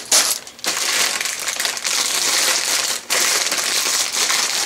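Clear plastic parts bags full of LEGO pieces crinkling as they are handled and piled on a counter, with a brief pause about three seconds in.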